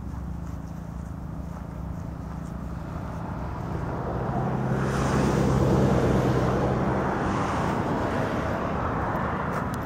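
Road vehicle passing: a low engine hum with tyre noise that swells over a few seconds, peaks about five to six seconds in, then fades slowly.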